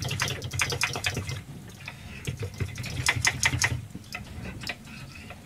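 A metal utensil clinking rapidly against the inside of a mug as milk and cup-of-soup powder are stirred together, in quick runs of clicks that are busiest at the start and again about three seconds in, over a low steady hum.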